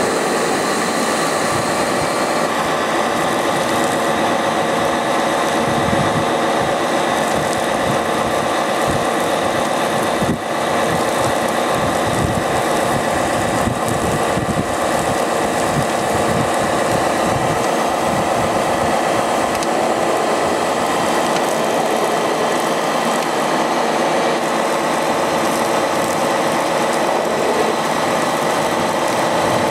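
Steady motor hum and whine of a radio-controlled model fire truck's pump running while its roof monitor sprays foam, with a brief dip about ten seconds in.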